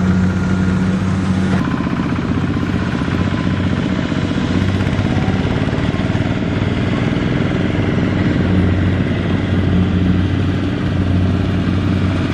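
Single-cylinder diesel engine of a two-wheel walking tractor running steadily under load while it pulls a loaded trailer, a fast, even chugging. The tone shifts slightly about a second and a half in.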